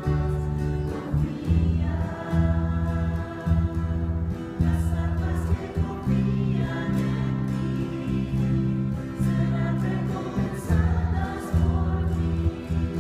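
Small mixed choir of men and women singing a Spanish-language Catholic worship song, accompanied by acoustic guitar, electric guitar and an electric bass playing held low notes that change every second or so.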